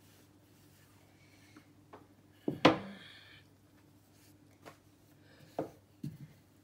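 Wooden rolling pin knocking against the countertop in a few sharp taps while roti dough is rolled out; the loudest tap comes about two and a half seconds in. A faint steady hum runs beneath.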